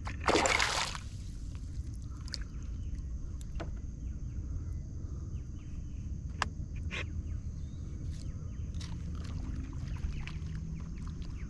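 A hooked peacock bass splashing at the surface beside a kayak, a short loud splash near the start. After it come low steady water and outdoor noise, with a few sharp knocks from handling on the kayak, and a faint steady high buzz.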